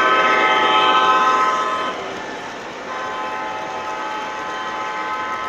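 Horn from an O gauge Canadian National model locomotive's onboard sound system: a long multi-note chord that stops about two seconds in, then a second, softer held blast from about three seconds in, over the steady running rumble of the train on track.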